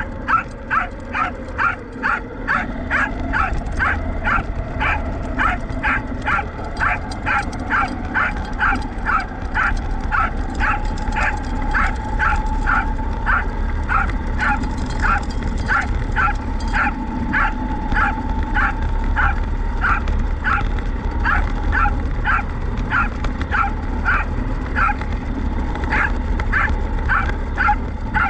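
Welsh corgi barking over and over, about two barks a second, while chasing. Under the barks a small electric motor whines steadily, slowly rising in pitch, over a low rumble.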